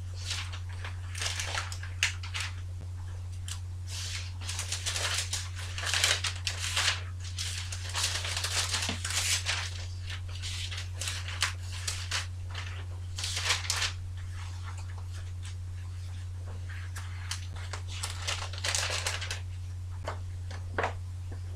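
Thin Bible pages being leafed through by hand, rustling in irregular bursts as the pages are turned to find a passage. A steady low hum runs underneath.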